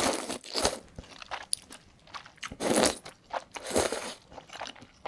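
Close-miked slurping of corn noodles from a bowl of mala tang broth, in several long slurps with wet chewing between them.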